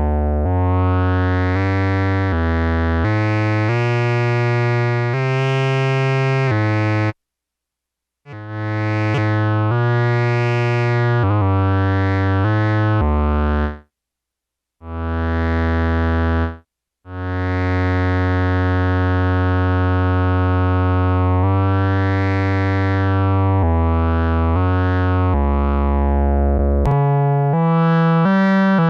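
Yamaha SY-2 vintage analog synthesizer playing a string of single sustained notes, several with the brightness swelling and fading as the filter sweeps, broken by three short silences. The instrument is out of tune.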